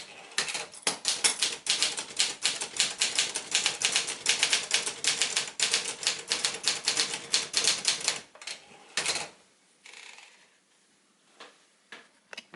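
1971 Sears Achiever (Brother JP7) manual portable typewriter being typed on quickly: a fast, even run of key strikes that stops about two-thirds of the way through, followed by a few scattered single clicks.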